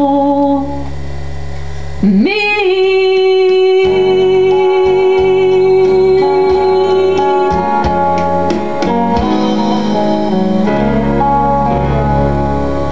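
A woman singing a country song into a microphone, scooping up into one long held note of about five seconds, over accompaniment with guitar; after the note ends the instrumental accompaniment plays on alone.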